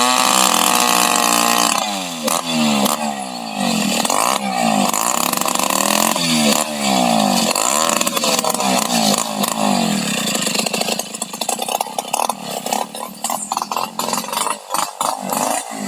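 Two-stroke chainsaw engine revving up and down repeatedly, its pitch rising and falling about once a second. In the last few seconds the running turns choppy and uneven.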